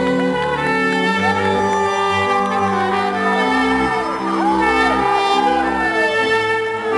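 Live folk band with no vocals, trumpet and other brass over accordion and ukuleles, playing sustained chords that change every half second or so. Gliding, wavering high notes slide above the chords in the middle.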